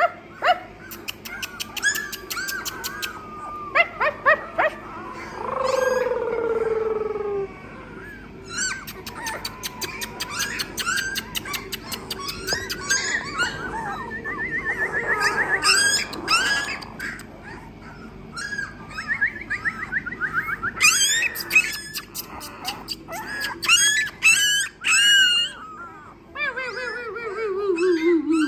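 Three-week-old English Labrador Retriever puppies squeaking and whimpering, with many short high chirps and a few longer falling whines, one about six seconds in and one near the end.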